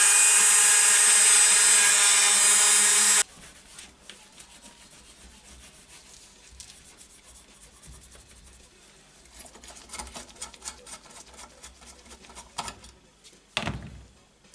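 Cordless Dremel rotary tool running with a steady high whine against the metal end cap of a motorcycle silencer, cutting off abruptly about three seconds in. Then a cloth rubs over the metal with small clicks, and there is one short thud near the end.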